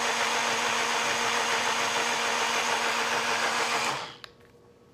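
BlendJet portable blender running steadily, blending water and protein shake powder, then stopping abruptly about four seconds in; a faint click follows.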